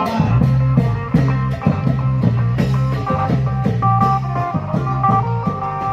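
Klong yao procession band music: drums keep a steady, lively beat under held melodic notes.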